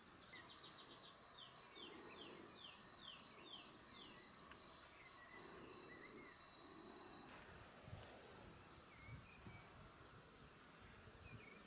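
Crickets trilling steadily and high-pitched in a meadow, while a songbird sings a quick run of about eight down-slurred notes in the first few seconds, followed by a few softer bird chirps.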